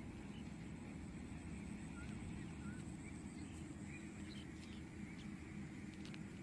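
Steady low outdoor rumble over open water, with a few faint, short bird chirps a couple of seconds in and some light clicks in the second half.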